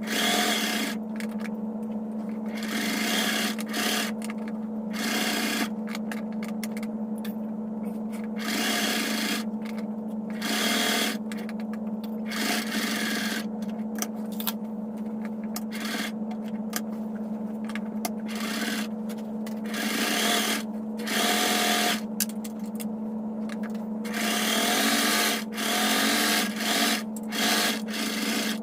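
Sewing machine stitching a fabric hem in short runs, with cloth rubbing and sliding between runs, over a steady low hum.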